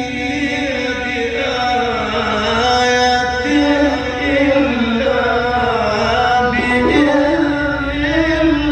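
Quran recitation in melodic tajweed style: a single voice holding one long, ornamented phrase, its pitch rising and falling without a break.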